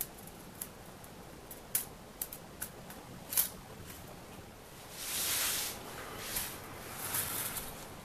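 Hand screwdriver driving small screws into pre-threaded holes in a wooden mounting bracket: a scattering of small clicks and creaks. About five seconds in comes a stretch of scraping and rustling, with two more short scrapes near the end.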